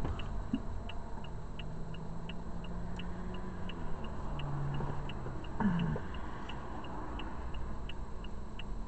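A car's turn-signal indicator clicking steadily, about three clicks a second, over the low rumble inside the cabin.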